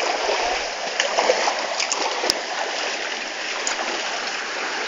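Mountain stream water rushing steadily, with a sharp click a little after two seconds in.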